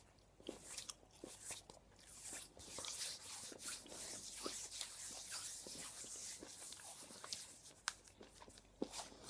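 Hands rubbing together and moving close to the microphone: soft skin-on-skin rustling with small crackles, and a couple of sharper clicks near the end.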